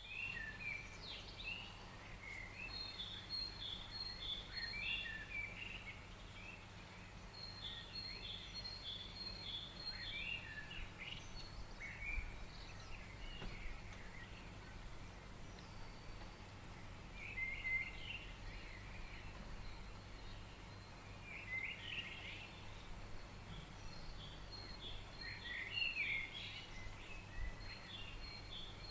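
Spring birdsong: small songbirds chirp and trill throughout, with a few louder, harsher calls standing out about halfway through and near the end.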